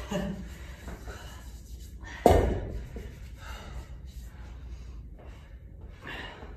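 One heavy thud about two seconds in, a kettlebell knocking onto the rubber gym floor, with a lifter's heavy breathing around it.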